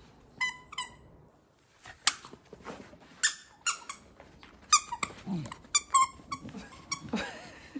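A squeaky dog toy squeaked over and over in short, irregular bursts as a dog chews on it.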